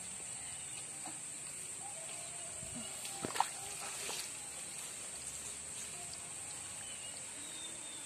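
Small splashes and rustles of hands working in shallow muddy water among weeds, with a sharper knock about three and a half seconds in, over a steady high-pitched hiss.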